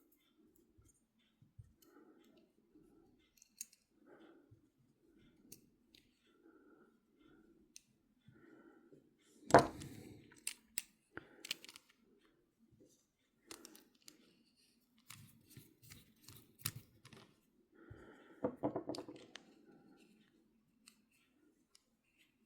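Small metal parts of an Abumatic 150 reel clicking and tapping as they are handled and fitted together, with one sharp knock about halfway through.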